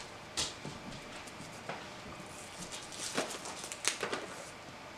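A few sharp, scattered clicks and faint crinkling: a plastic candy wrapper being pulled open, with a dog's claws clicking on the floor.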